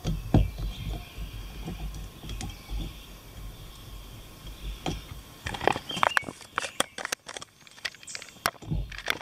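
Handling noise of a small backpacking stove being screwed onto a gas canister, with light scattered clicks. From about halfway in, a thin plastic water pouch crinkles in the hands in a dense run of sharp crackles.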